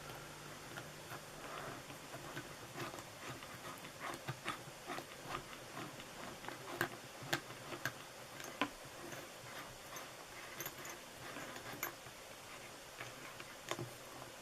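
Hand drill being handled while a bit is fitted into its chuck: irregular light clicks and taps, with a few sharper clicks between about seven and nine seconds in and again near the end.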